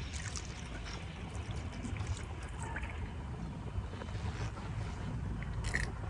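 River water flowing and trickling, over a steady low rumble, with a few faint scattered ticks.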